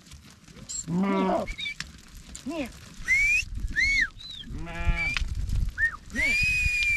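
Sheep and goats in a moving flock bleating several times, one call after another. High sliding whistles come between the calls, and the longest, almost steady one comes near the end.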